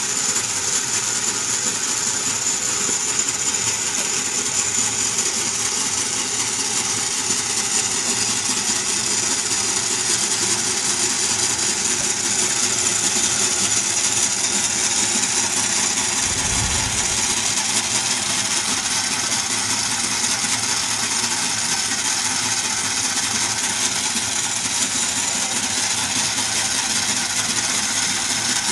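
A Merkur metal construction-set model of a single-cylinder engine runs continuously. Its crankshaft, rods, rocker arms and valve gear clatter steadily as the flywheel spins.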